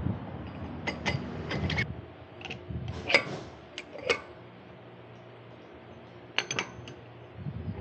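Metal tools and parts being handled in a car suspension repair: scattered sharp metallic clicks and clinks with a brief ring, a quick run of them early, then single louder ones and a pair near the end.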